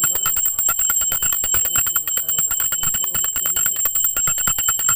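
Small brass puja hand bell (ghanti) rung rapidly and continuously for an aarti, a fast even stream of strikes under a steady high ringing.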